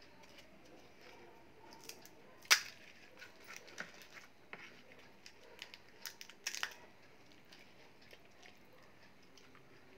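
Crisp fried puri shells for pani puri crackling and crunching as they are handled, cracked open by hand and eaten, with soft mouth and chewing noises between. The loudest is a single sharp crack about two and a half seconds in, with a quick run of crackles around six seconds in.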